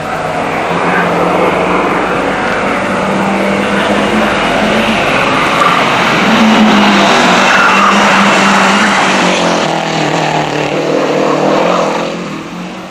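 A rally car passing at speed, its engine loudest about seven seconds in as it goes by, dropping away near the end.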